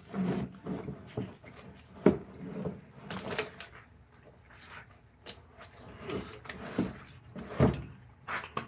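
A series of irregular knocks and clunks, as of hard objects being handled and set down, with the loudest knock about two seconds in and another near the end.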